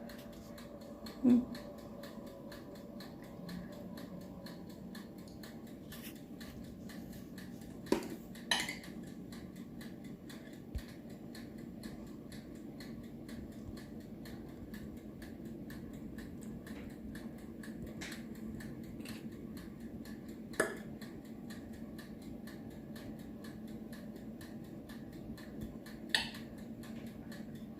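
A few light clinks and taps of kitchen utensils against cups, spread out over a faint steady hum, while chocolate cake batter is spooned into small baking cups.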